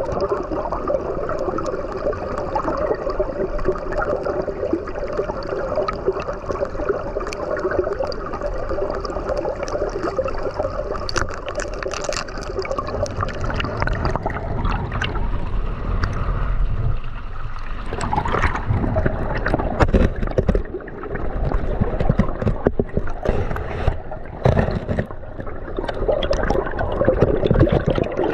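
River water flowing and gurgling around ice, a steady rushing sound that turns more uneven and choppy about two-thirds of the way through.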